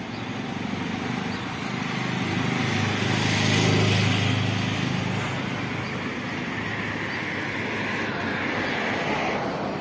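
Road traffic passing: car engine and tyre noise swells to its loudest about four seconds in and fades, then a second car passes close near the end.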